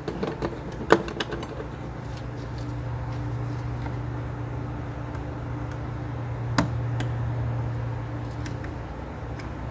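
Small screwdrivers clicking and scraping against a brittle plastic electrical connector as it is pried up from underneath. A quick run of clicks comes in the first second or so, the sharpest about a second in, and another single click comes at about six and a half seconds, all over a steady low hum.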